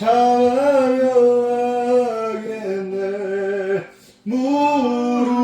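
Voices singing a Korean hymn in long, held notes, with a short break for breath about four seconds in.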